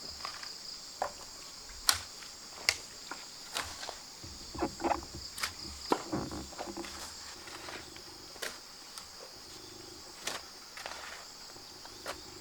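Irregular knocks and scrapes of outdoor digging or handling work, the sharpest about two seconds in, over a steady high buzz of insects.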